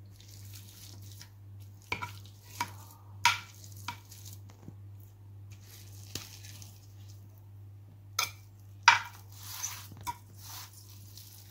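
Metal wire potato masher pressing through boiled potatoes in a glass dish, knocking and clinking against the glass at irregular intervals, with soft mashing noise in between; the loudest knocks come about three seconds in and about nine seconds in.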